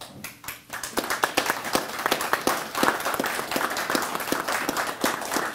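A small group applauding: scattered claps that build within about a second to steady clapping.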